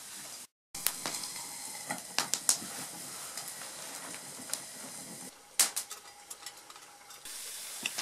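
Small wood campfire crackling, with irregular sharp pops and snaps over a steady hiss.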